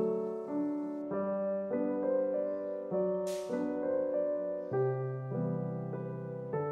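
Gentle background piano music, notes and chords changing every half second to a second, with a brief soft whoosh about three seconds in.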